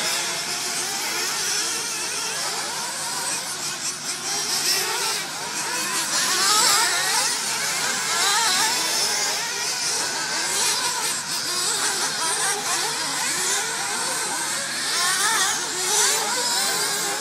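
Several 1:8 scale RC racing cars' small engines running over one another, revving up and down continually as the cars race around the track.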